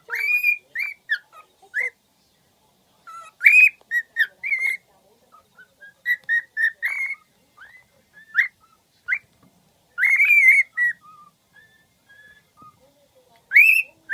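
A pet bird whistling: quick runs of short notes that rise and fall, in several bursts with pauses between them.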